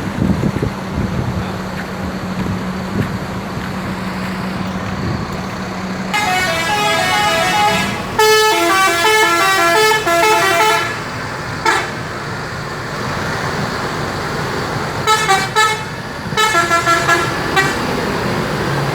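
Indonesian bus 'telolet' horns: multi-tone musical horns play a quick stepping melody for about five seconds. Near the end come several short bursts of rapid toots. Before the horns, only a steady low hum is heard.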